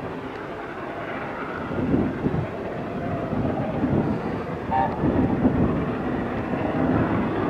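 LNER A4 three-cylinder steam locomotive approaching unseen, its exhaust beats growing steadily louder.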